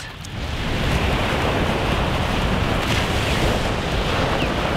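Wind rumbling on the microphone over the steady wash of small waves breaking on a sandy shore.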